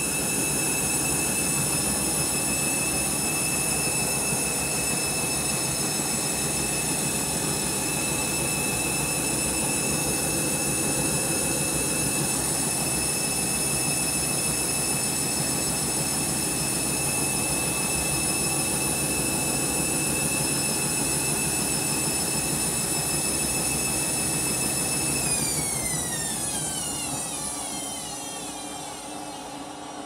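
Candy Grand'O Vita washing machine spinning its drum, a steady high motor whine over a constant rushing noise. About 25 s in the whine falls steadily in pitch as the drum winds down: the spin cut short by a suds lock from excess foam.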